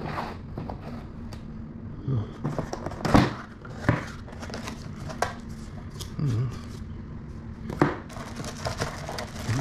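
Parts of a rack cable-pulley attachment being handled, with packaging crinkling and several sharp clicks and knocks, the loudest about three seconds in.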